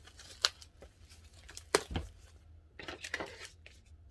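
Packaging wrapping rustling and crinkling as a new handbag's wrapped strap is handled and unwrapped, with two sharp crackles, one about half a second in and one near two seconds, and a burst of rustling around three seconds in.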